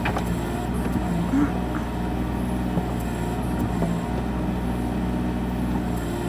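Excavator's diesel engine running steadily, with a few light knocks and clanks.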